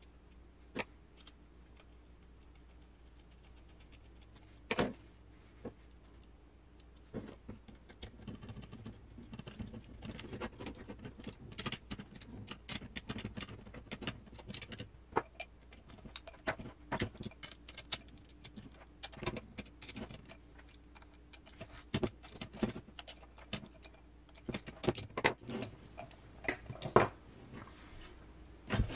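Small metal RC crawler chassis parts clinking and tapping against each other as a chassis rail and its mounts are handled and screwed together with a hand hex driver. Scattered light metallic clicks grow busier about eight seconds in, with a few louder knocks, the loudest near the end.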